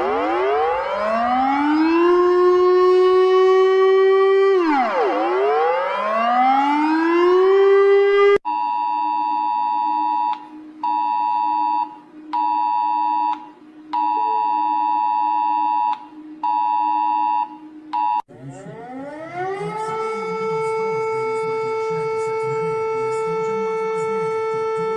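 Emergency alert siren sounds. A siren winds up twice in rising wails, then a chord of steady alert tones pulses on and off about six times in an uneven rhythm. Near the end a siren rises again and holds one steady tone.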